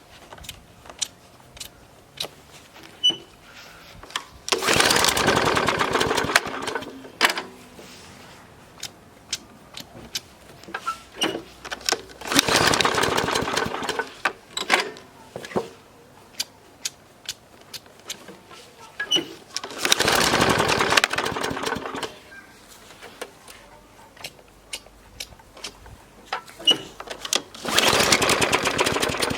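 Petrol lawnmower engine, a Briggs & Stratton, being pull-started four times: each pull brings two to three seconds of engine noise that then dies away, with clicks and knocks between tries. It is a mower that won't keep running, a common starting fault of mowers with plastic carburettors.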